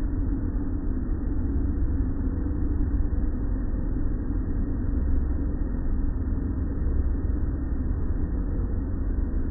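Automatic tunnel car wash running: a steady low rumble of its machinery and water, with no distinct strikes.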